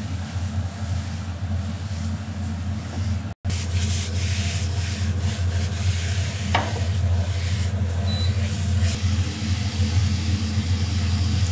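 Sliced eggplant sizzling in a wok while a silicone spatula stirs and scrapes it against the pan, over a steady low hum. The sound cuts out completely for an instant a little over three seconds in.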